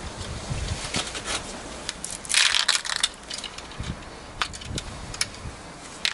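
Steel slingshot balls clicking and clattering against each other and the magnet, with a dense rattle of clicks about two and a half seconds in.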